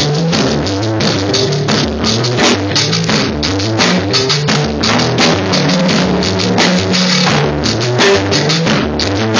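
A live instrumental jazz-grunge band: a drum kit played with dense drum and cymbal hits under a guitar.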